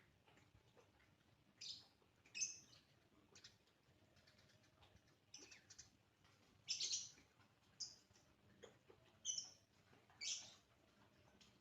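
A Eurasian tree sparrow chirping: about nine short, high chirps spread irregularly, some in quick pairs, over faint scattered ticking.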